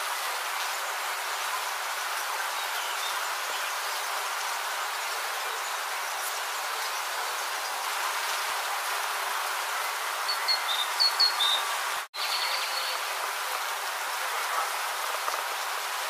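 Steady buzzing of many bees. A few short, high bird chirps come about ten to eleven seconds in, and the sound drops out for an instant about twelve seconds in.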